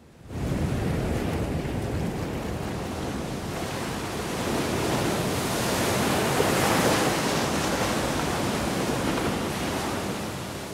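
Sea waves washing onto a sandy beach: a steady rush of surf that starts suddenly, grows a little louder midway and then cuts off abruptly.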